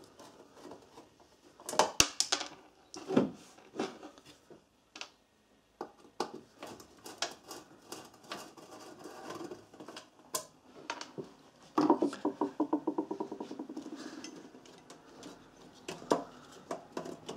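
Screwdriver work on a MIG welder's sheet-metal case: scattered clicks, taps and metallic knocks as screws and small hardware are undone and handled. Loud knocks come about two and three seconds in, and a fast run of rattling ticks lasts about two seconds from about twelve seconds in.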